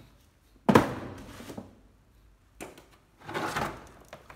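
Handling of a hard plastic power-tool carry case: a loud thunk a little under a second in as it is set down, then a click and a scraping rustle near the end.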